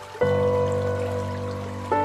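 Background music of sustained chords: a new chord comes in suddenly near the start and rings on, and the harmony changes near the end.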